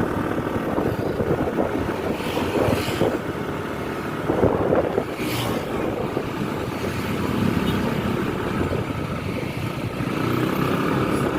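Steady road-vehicle noise: engine and road rumble, with a couple of brief louder swells.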